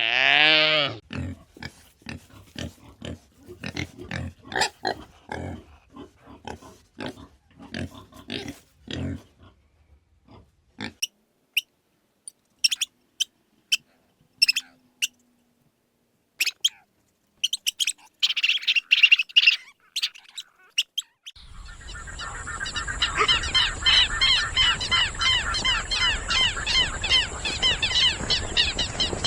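A run of animal sounds: a bleat-like call at the start, then short grunts repeated for about nine seconds, scattered clicks and a brief burst of chirps, and from about two-thirds of the way in a dense, steady chorus of bird-like chirps.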